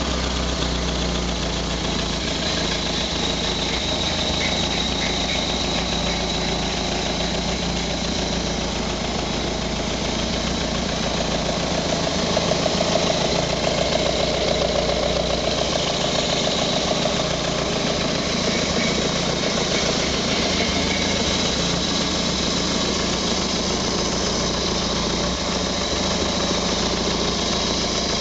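Freshly rebuilt Renault Frégate four-cylinder engine running on an engine stand just after its first start, idling steadily, a little louder for a few seconds about twelve seconds in.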